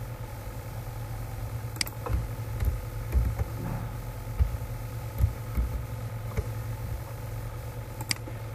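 Steady low hum with faint steady tones above it, and a few clicks from a computer keyboard and mouse: a sharp click about two seconds in, another near the end, and some soft low thumps in between.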